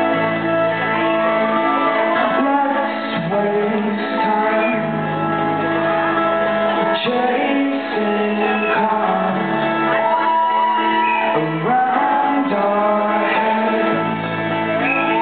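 A man singing into a microphone while playing an acoustic guitar, performed live on stage.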